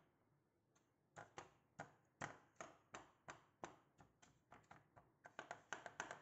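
Bottom of a glass tapping down on a buttered biscuit-crumb cheesecake base in a metal cake pan, pressing it flat. The taps are soft and come about three a second, starting about a second in.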